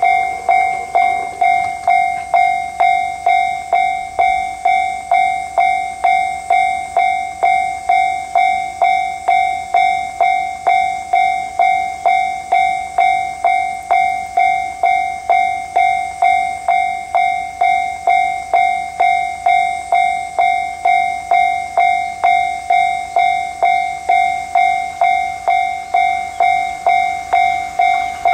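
Railway level-crossing warning bell ringing steadily, about two strikes a second, each a single ringing tone that dies away before the next: the crossing signal warning of an approaching train.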